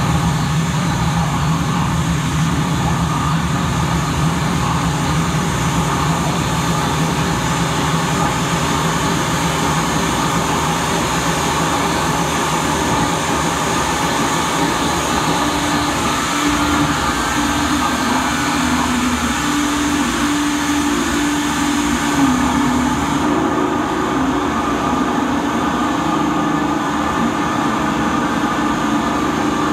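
Live harsh noise music played on chains of effects pedals: a loud, dense, unbroken wall of noise with a steady low drone and higher tones that step up and down in pitch. About three quarters of the way through, the highest hiss drops away.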